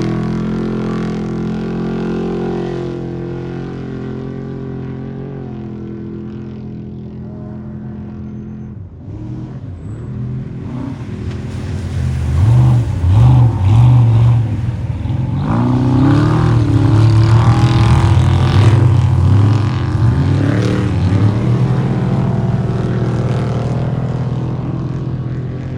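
An off-road race vehicle's engine fading as it drives away. Then a second race vehicle approaches, its engine revving up and down several times as it passes, loudest a little past the middle, before fading off.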